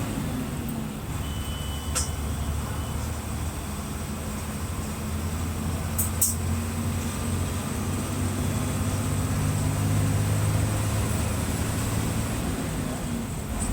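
Mercedes-Benz OF-1721 bus's six-cylinder turbodiesel engine running with a steady low drone whose pitch shifts a little, as if the bus is under way. A sharp click comes about two seconds in, and a louder double click about six seconds in.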